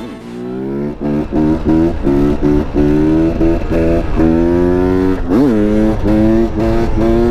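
Dirt bike engine under hard throttle, its pitch climbing and breaking off again and again as the rider works the throttle and gears, then holding steadier at speed. About five and a half seconds in it revs sharply up and back down.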